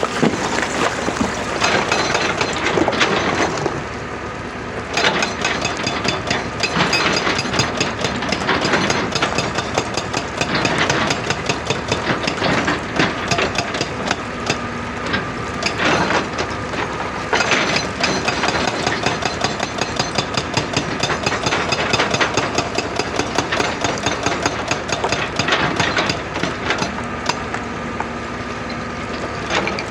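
Excavator with a hydraulic rock breaker hammering rock in rapid repeated blows over the running engine, easing off briefly about four seconds in.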